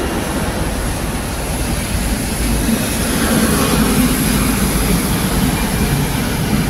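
Double-decker buses driving past on a wet road: a steady engine rumble and tyre hiss that swells a few seconds in as one bus passes close by.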